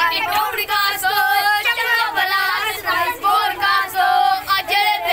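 Young boys singing together in high voices, the pitch wavering and bending.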